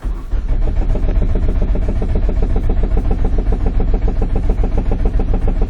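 2005 Nissan Sentra's 1.8-litre four-cylinder engine being cranked over by the starter with the accelerator floored, turning steadily in an even rhythm of compression pulses without starting: a cranking run for a relative compression test.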